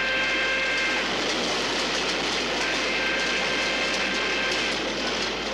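Horn-like alarm sounding two long, steady blasts over a continuous hiss of escaping steam: the first blast ends about a second in, the second runs for about two seconds from midway.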